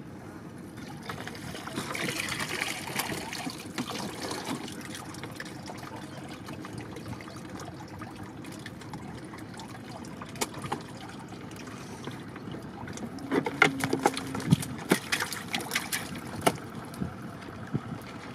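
Water trickling and dripping off a bamboo prawn trap as it is hauled up out of the river, splashing most about two seconds in. Later comes a run of sharp clicks and knocks as the wet bamboo trap is handled against the wooden boat.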